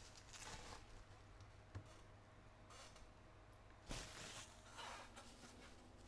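Faint handling sounds of a parcel being unwrapped: soft scratchy rustles with a light click about two seconds in and a sharper knock around four seconds in.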